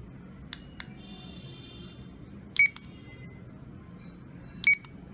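Buttons on a toy voice-changer bow tie being pressed: a couple of faint clicks, then two short, sharp electronic beeps, about two and a half and four and a half seconds in.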